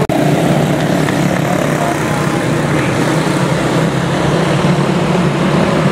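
Quarter midget race cars' Briggs & Stratton Animal single-cylinder engines running at racing speed, a steady, continuous engine drone. The sound drops out for an instant right at the start.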